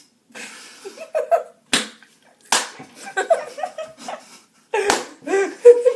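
Two young people laughing and giggling, broken by three sharp smacks; the laughter is loudest near the end.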